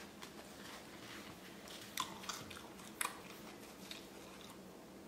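Faint chewing and biting of a crisp beer-battered tempura halibut taco, with a few sharp crunches about two and three seconds in.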